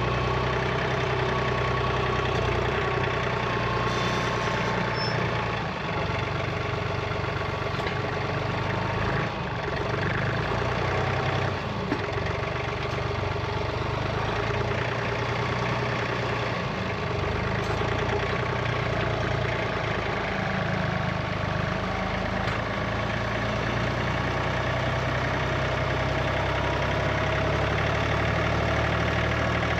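Engine idling steadily, a constant low rumble with a steady hum above it.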